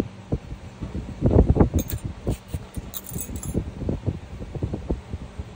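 Stainless-steel pedicure tools clinking against each other as they are handled, with irregular knocks and handling bumps; a quick run of bright metallic clinks comes about two to three and a half seconds in as the nail pick is set down and a nail nipper picked up.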